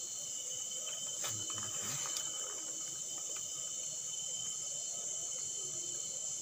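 Night-time chorus of crickets and other insects singing steadily at a high pitch, with a couple of faint clicks about one and two seconds in.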